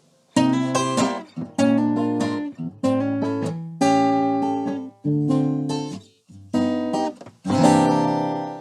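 Acoustic guitar playing a chord intro to a song, about one strummed chord a second, each left to decay, with the last chord ringing out near the end.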